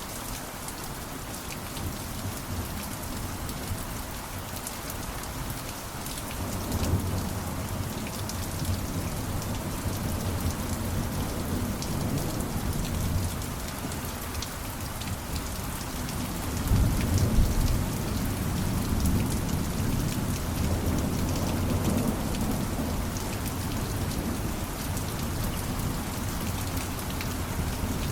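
Steady rain falling, with low rolls of thunder from about six seconds in and a louder rumble of thunder just past the middle.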